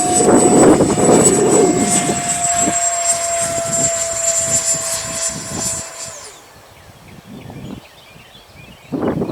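E-flite Viper 64 mm electric ducted-fan jet running at steady high power: a high fan whine that sags slightly in pitch and stops about six seconds in. Gusty wind rumbles on the microphone throughout.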